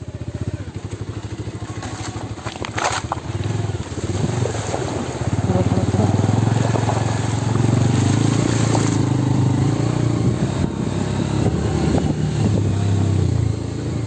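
Motorcycle engine running under load on a rough off-road trail, with a sharp clatter about three seconds in; it grows louder from about four seconds in.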